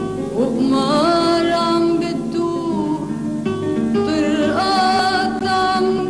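Lebanese song: a sung melody of long held notes that slide up into pitch, twice, over a plucked-string accompaniment.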